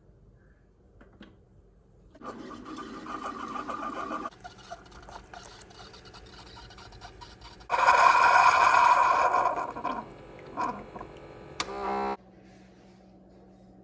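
Single-serve pod coffee maker brewing into a ceramic mug. The machine runs in stages: a first stretch about two seconds in, a louder rush of coffee and air about eight seconds in, then a short pulsing sputter that cuts off suddenly as the brew finishes.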